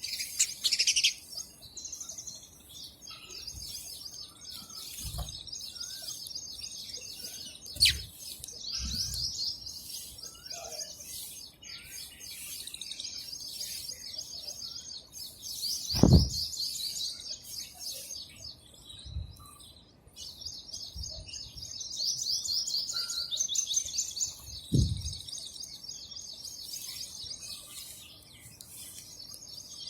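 House sparrows chirping continuously in quick, repeated chirp series. A few dull thumps come through, the loudest about halfway through.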